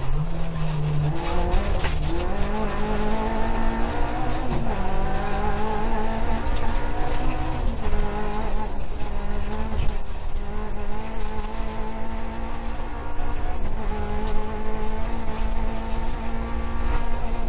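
Rally car engine heard from inside the cockpit, driven hard. The revs climb repeatedly and drop back at each gear change, over loud road and tyre noise.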